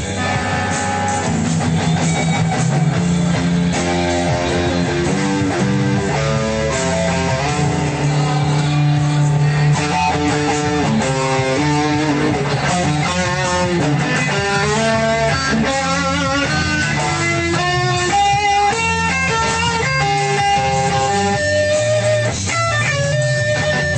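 Electric guitar playing a lead solo: quick runs of single notes climbing and falling, with some longer notes held and shaken with vibrato. Underneath runs a steady backing track with bass.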